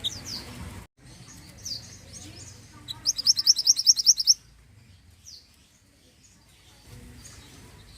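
Minivet (burung mantenan) calling: scattered short, high, downslurred chirps, and about three seconds in a fast, loud trill of about a dozen sharp high notes lasting just over a second.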